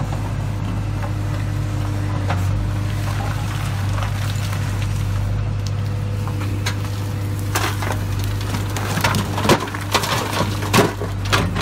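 JCB 3DX backhoe loader's diesel engine running steadily as the backhoe swings a bucket of stone. From about seven and a half seconds in, stones tumble from the bucket and clatter into the dump truck's bed in a run of sharp knocks.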